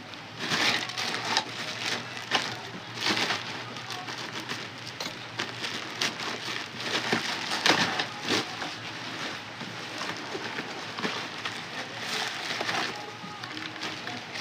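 Irregular crackling and rustling of packaging being handled and torn open, with sharp clicks and scrapes.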